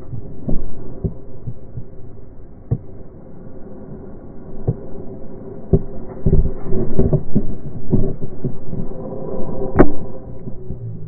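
Mountain bike clattering over rough trail: irregular knocks and thuds over a steady hum, busiest in the second half, with one sharp crack near the end.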